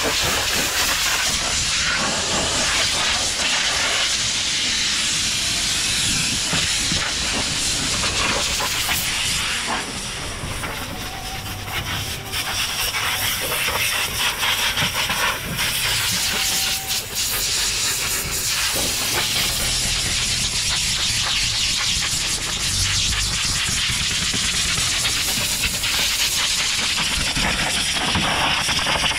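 Pressure washer spraying water: a steady, loud hiss that dips and falters a few times midway as the spray moves or pauses.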